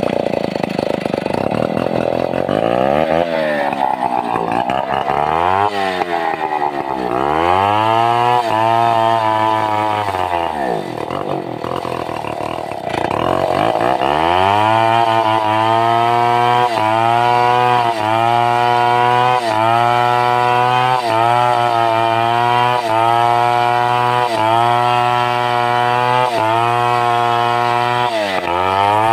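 Stihl 070, a large two-stroke chainsaw, running hard while cutting timber, its pitch sagging under load and recovering. Its revs drop and climb again about halfway through, then it holds high revs with a short dip roughly once a second as the chain bites into the wood.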